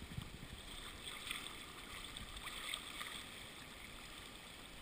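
Faint, steady rush of a fast-flowing river running over rocks and riffles.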